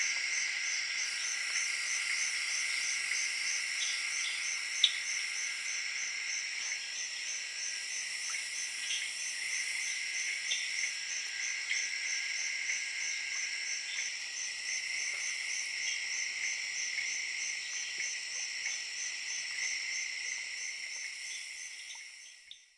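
Jungle night chorus of tree frogs and crickets: a steady, rapidly pulsing high trill over a constant lower drone, with scattered short frog calls and one sharp click about five seconds in. The chorus fades out near the end.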